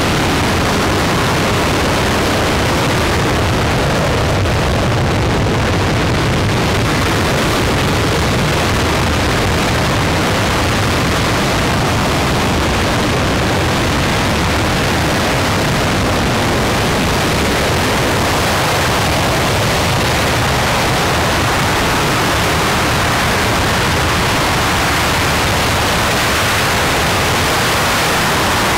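Former space shuttle main engine (RS-25) firing on a test stand: a loud, steady, unbroken rushing noise that holds at one level throughout.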